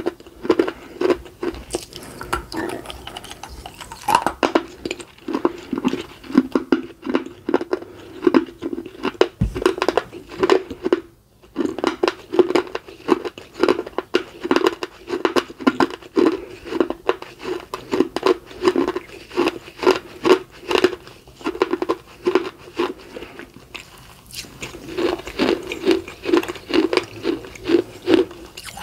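Close-up crunching and chewing of a small clay piece, bitten off and chewed in a steady rhythm of about two chews a second. There is a brief pause about eleven seconds in.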